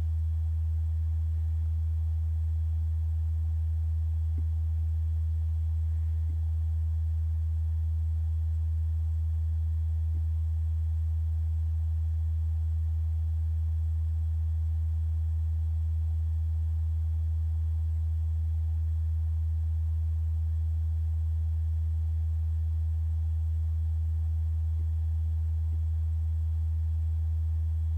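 Steady low electrical hum at an unchanging level, with no other clear sound.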